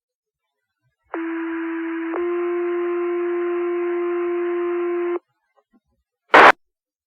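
Two-tone sequential pager alert tones on a fire dispatch radio channel: one steady tone for about a second, then a second tone held for about three seconds, alerting volunteer firefighters' pagers ahead of a page. Near the end comes a short burst of radio static as the transmitter unkeys.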